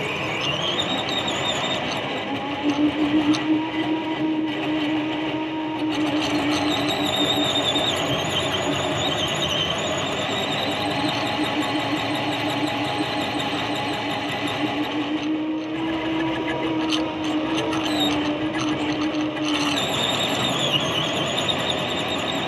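Electric motor and gearbox of a radio-controlled scale Mercedes off-roader whining as it drives, heard from inside its cab. The whine rises in pitch in the first second and changes again near the end. A steady lower hum comes and goes underneath.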